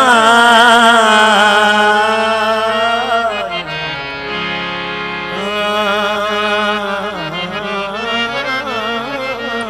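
Qawwali singing with harmonium: a lead voice holds long, ornamented wavering notes, drops out about three and a half seconds in to leave steady harmonium tones, and comes back in about two seconds later.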